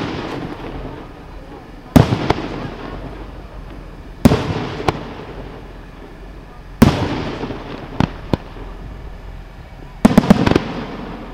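Aerial firework shells bursting: a loud bang every two to three seconds, each trailing off in a rolling echo and followed by a smaller crack or two. A quick cluster of several bangs comes near the end.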